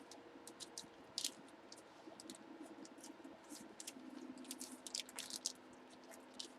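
Faint, irregular light clicks and crinkles of small objects being handled close to the microphone, such as trading cards and plastic card sleeves.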